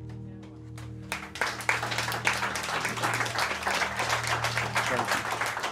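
The final acoustic guitar chord rings on while an audience starts applauding about a second in, a scattered few claps first and then steady clapping that soon drowns out the fading chord.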